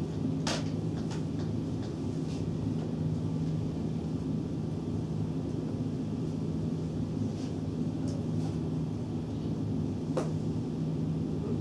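Steady low room hum, with a few faint taps and squeaks of a dry-erase marker writing on a whiteboard.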